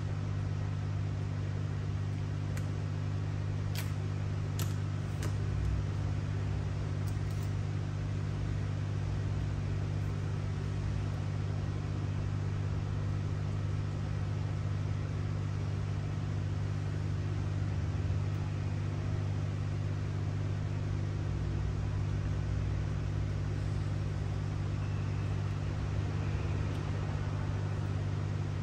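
Steady low machine hum over a faint hiss, with a few light clicks about four to five seconds in.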